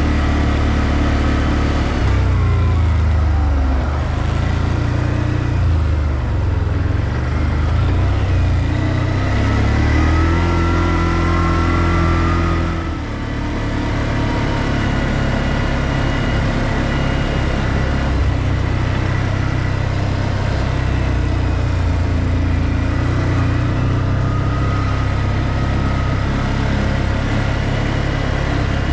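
ODES 650 ATV engine running under way, its revs rising and easing as it is ridden along a dirt track. The revs climb for a few seconds near the middle, then drop sharply as the throttle is let off.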